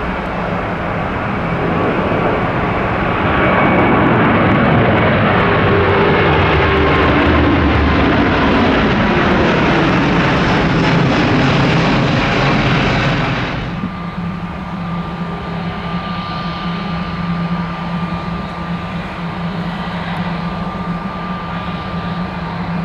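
Airbus A350 jet airliner's Rolls-Royce Trent XWB engines as it passes close by: the engine noise swells and the pitch slides down as it goes past. About fourteen seconds in the sound drops suddenly to a quieter, steady jet whine with a low hum.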